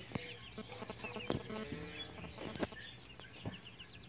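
Farmyard fowl clucking and birds chirping in quick short calls, with a few sharp knocks.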